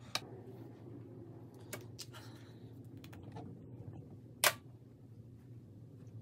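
Small clicks and taps of makeup being handled, a concealer applicator and a blending brush, with one sharper click about four and a half seconds in, over a faint steady low room hum.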